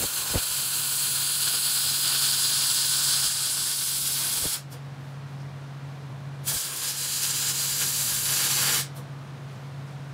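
MIG welding arc on steel tubing, a harsh crackling hiss in two welds: one of about four and a half seconds, then after a pause of about two seconds a shorter one of about two seconds. A steady low hum runs underneath.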